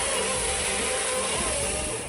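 Wood-processing machinery running with a steady, even noise, easing off near the end.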